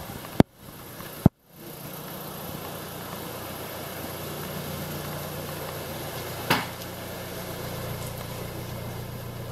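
Hyundai i20's 1.4-litre G4FA four-cylinder petrol engine idling steadily, a high-mileage engine (about 239,000 km) with no stored engine faults. Two sharp clicks in the first second and a half, each followed by a brief dropout, and a short knock about six and a half seconds in.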